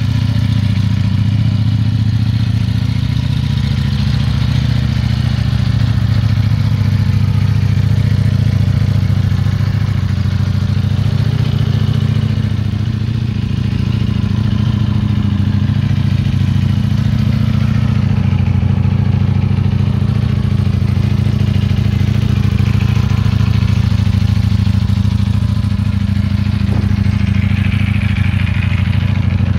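Ducati Panigale V4's 1103 cc V4 engine idling steadily.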